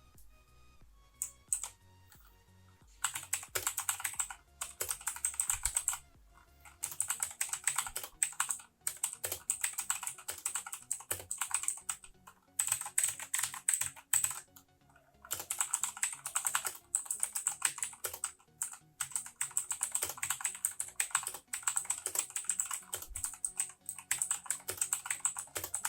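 Fast typing on an Aukey KM-G6 mechanical keyboard with clicky Outemu Blue switches: dense runs of sharp key clicks, starting after a few single presses about three seconds in and broken by brief pauses.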